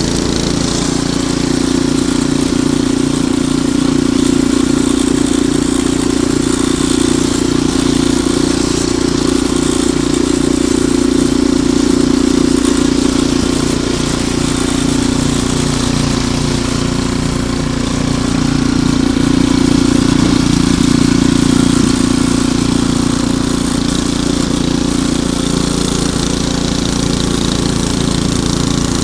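Ariens Deluxe 28 snowblower engine running steadily, its pitch holding even while the loudness swells and eases slightly a few times.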